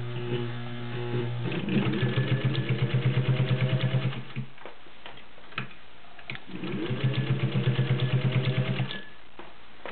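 Vintage Singer 201-2 sewing machine, its direct-drive potted motor winding up and driving the needle through three layers of leather. It sews in two runs of rapid, even stitching, each a couple of seconds long, with a pause and a click or two between them.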